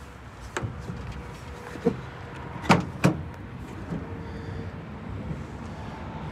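Four sharp knocks, the loudest two close together about three seconds in, over steady background noise.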